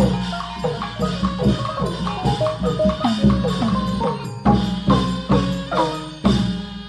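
Burmese traditional music playing for a puppet dance: a quick run of struck, pitched percussion notes, several every second, many sagging in pitch just after each strike.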